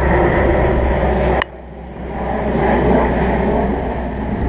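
Turboprop transport plane droning overhead, a steady low engine noise mixed with rushing air. There is a sharp click about a second and a half in, after which the sound drops and then builds back up.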